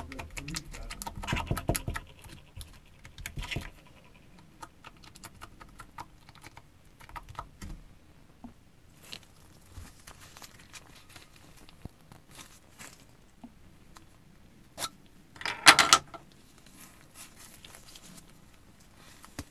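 Thick slime being pressed and poked with a highlighter marker: rapid sticky clicks and pops, densest in the first few seconds, then scattered, with a loud burst of crackling about sixteen seconds in.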